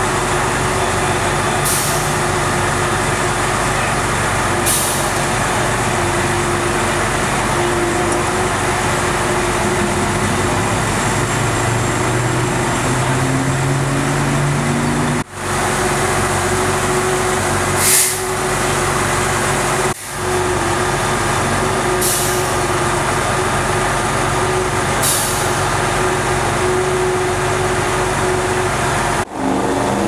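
Pierce fire engine's diesel idling steadily, with a few short, high air hisses from its air system now and then.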